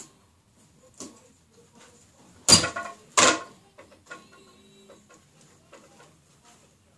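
Two loud, sharp clattering knocks close together, about two and a half seconds in, with faint scattered clicks around them.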